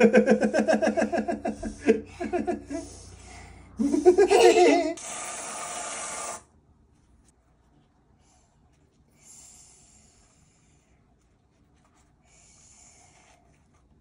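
A voice making wordless, pulsing sounds for the first few seconds and again briefly around four seconds in, then an aerosol can of whipped cream spraying with a steady hiss for about a second and a half. Two fainter short hisses from the can follow later.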